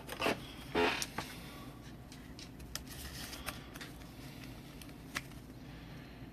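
Trading cards and their packaging being handled: a few rustles in the first second, then faint, scattered clicks and taps.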